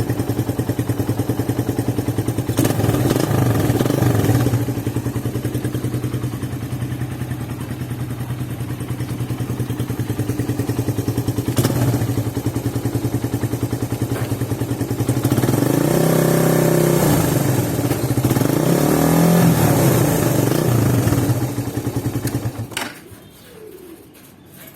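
Suzuki Raider 150 single-cylinder four-stroke engine running through a big-elbow header pipe and the stock muffler canister: idling, with a short blip of the throttle about three seconds in and two longer revs past the middle, then switched off near the end.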